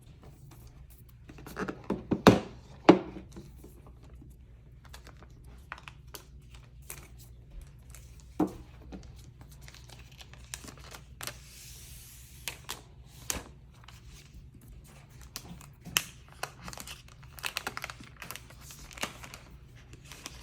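Packaging being handled by hand during an iPad unboxing: a couple of sharp knocks about two and three seconds in, then scattered taps with stretches of crinkling and tearing of the wrap.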